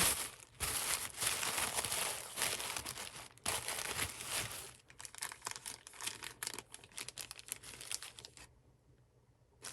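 Packaging being unwrapped by hand: crinkling and tearing, with a run of rustling strokes that stops about a second before the end.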